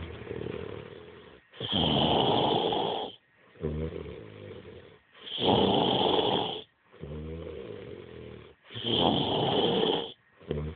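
Heavy snoring from a man passed out drunk: three loud, noisy snores about three and a half seconds apart, each followed by a softer, buzzing breath.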